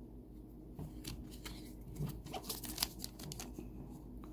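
Trading cards shuffled in the hand and a thin clear plastic bag crinkling: light, scattered rustles and small clicks, starting about a second in.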